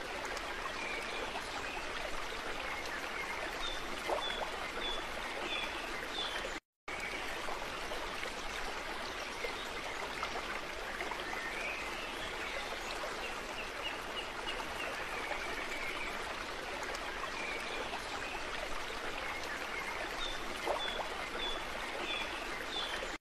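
Steady rush of a running stream, with birds chirping in short repeated series now and then. The sound cuts out for a moment about seven seconds in.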